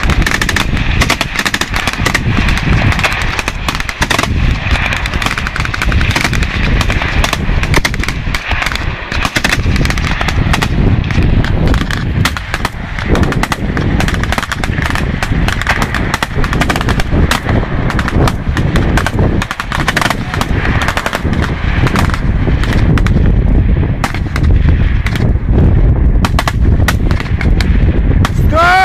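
Sustained small-arms fire from several automatic rifles and a machine gun: rapid, overlapping shots with no pause.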